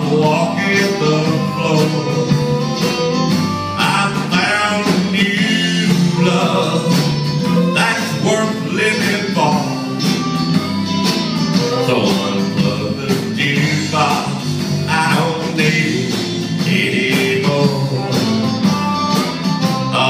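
Live country band playing an instrumental break, with a fiddle lead over electric guitar and a steady beat.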